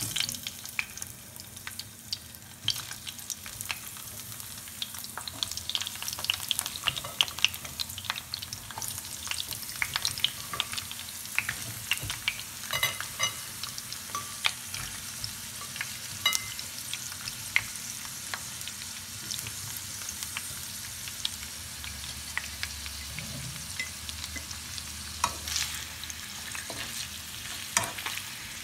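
Amla (Indian gooseberry) pieces, carrot sticks, green chillies and ginger sizzling and crackling in hot mustard oil as they are stirred in the pan, the sizzle starting sharply as the vegetables go in.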